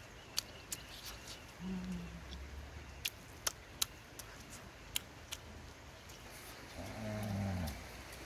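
A woman eating: sharp wet clicks and smacks of the mouth while chewing, with a short low hummed "mmm" about two seconds in and a longer, louder one near the end.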